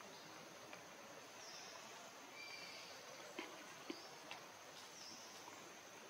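Faint outdoor background: a steady hiss with a few short, high-pitched calls from birds or insects, and three soft clicks near the middle.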